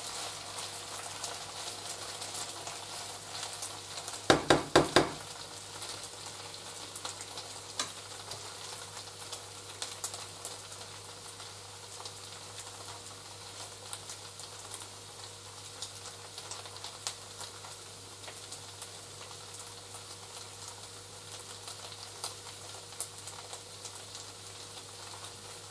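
Schupfnudeln and vegetables frying in a pan, a steady faint sizzle and crackle. About four seconds in, four quick knocks in a row stand out.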